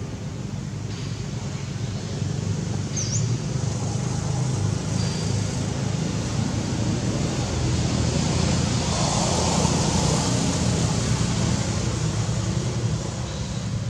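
Low, steady vehicle-engine rumble that swells to its loudest about two-thirds of the way through, then eases off. A brief high chirp is heard about three seconds in.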